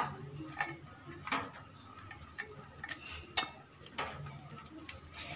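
Peeled garlic cloves being dropped by hand into a stainless steel bowl: scattered light taps and clicks, about half a dozen, at uneven intervals.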